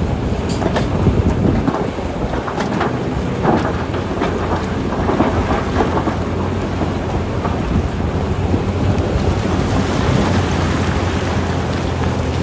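Large Caterpillar wheel loader digging into a pile of broken rock: its diesel engine runs under load while rocks crackle and grind against the steel bucket, with many sharp knocks in the first half. The engine then pulls harder and steadier as the full bucket is lifted.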